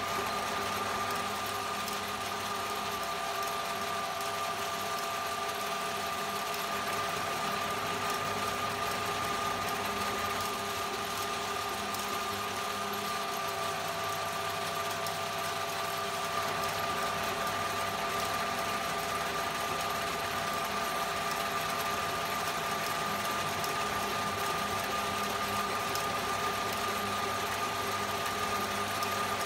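Old Hahn & Kolb metal lathe running steadily, its motor and drive giving an even mechanical hum with a steady high whine.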